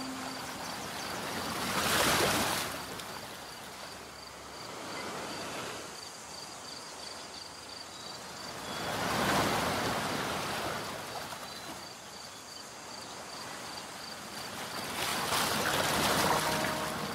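Waves washing in on a shore, three slow swells of surf about seven seconds apart.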